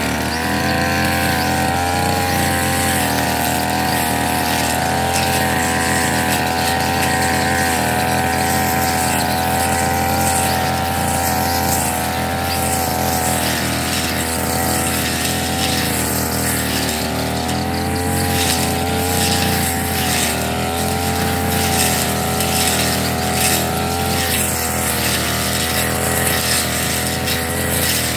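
Backpack petrol brush cutter engine running at high revs as its blade cuts through tall grass. Its pitch dips and recovers slightly now and then.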